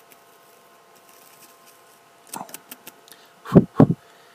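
A brush stroked on the microphone, playing the viewer's face in face-brushing ASMR. A few soft crackling bristle clicks come about two seconds in, then two loud, low brush strokes in quick succession near the end.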